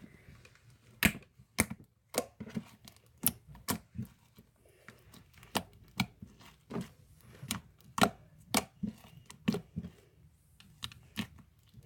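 Homemade slime being squished and played with for ASMR, making irregular sharp pops and clicks about one or two a second.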